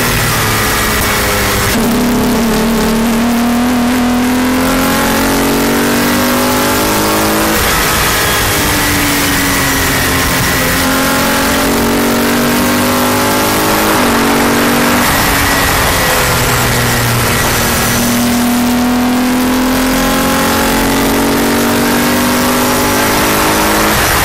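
Palmer Jaguar JP-LM race car heard onboard at speed: the engine's note rises and falls through the lap, jumping in pitch a few times at gear changes. Heavy wind rush fills the open cockpit.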